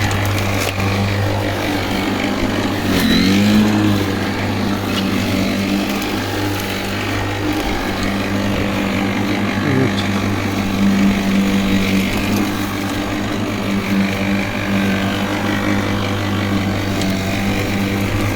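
WORX 40 cm cordless battery lawnmower running steadily, its electric motor and blade humming as it cuts grass, with a brief dip in pitch about three seconds in.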